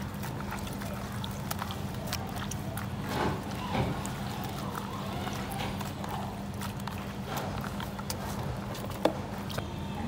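Raw pork offal being squeezed and kneaded by hand in a plastic basin of water: scattered wet squelches and clicks, with one sharper click near the end, over a steady low hum.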